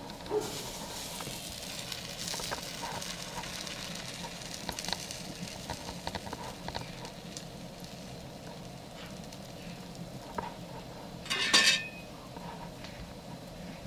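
Sausages sizzling on a grill over a crackling wood fire, with scattered small pops throughout. A short, much louder burst stands out about three-quarters of the way through.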